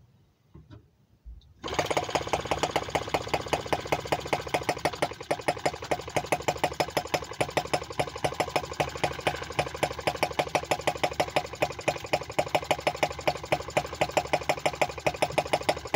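M12b 2.6 cc water-cooled four-stroke model gas engine catching suddenly, less than two seconds in, after a few faint clicks. It then keeps running with a fast, even clatter of sharp firing beats.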